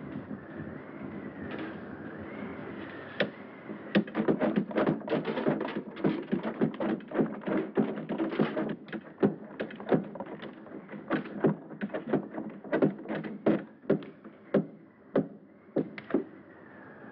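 Hand water pump being worked, its handle clanking and squeaking in quick, uneven strokes that start about three seconds in and stop shortly before the end.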